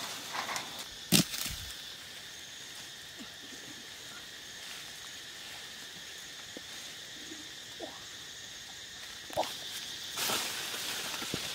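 Branches and leaves rustling and knocking as someone climbs about in a tree. A sharp crack about a second in is the loudest sound, with a burst of leaf rustling near the end. A steady high whine runs underneath.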